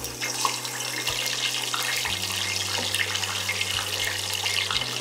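Marinated chicken pieces deep-frying in a pan of hot oil: a steady sizzle with scattered crackles and pops.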